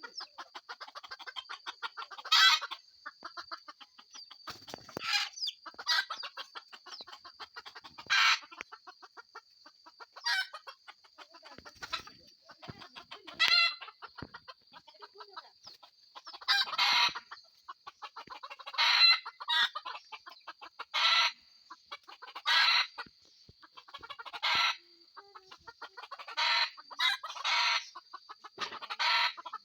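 Hill chickens clucking in a rapid run, with about a dozen louder short calls spread throughout, over a steady high-pitched whine.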